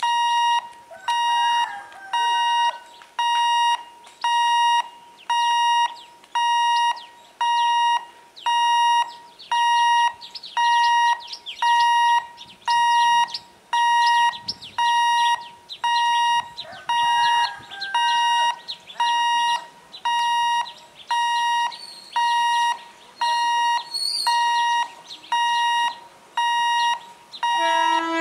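Electronic warning hooter at a railway level crossing, beeping one steady high tone about once a second. Near the end the approaching electric multiple unit train sounds its horn.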